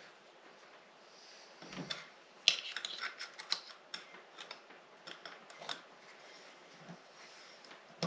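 Light metal clicks and scrapes of a retainer snap ring being worked into its groove in the hub of a 1937 Ford rear brake drum, over a freshly driven wheel seal. A quick flurry of clicks comes about two and a half seconds in, then scattered single ticks.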